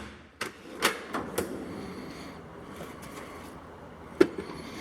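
A few light clicks and clatters of tools and test gear being handled in a toolbox drawer, then a single sharp click a little after four seconds in.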